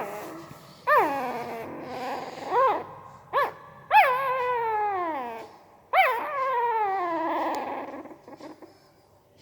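Newborn pariah puppy whimpering in its sleep: a series of high, thin whines, short rising-and-falling ones first, then two long whines that slide downward in pitch.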